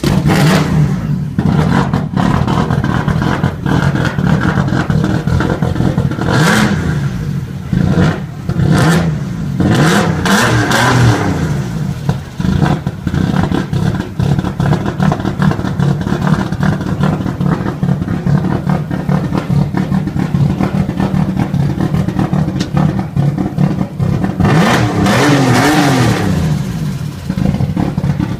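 Turbocharged BMW E36 325i's straight-six engine idling, revved up and released several times, most strongly about ten seconds in and again near the end.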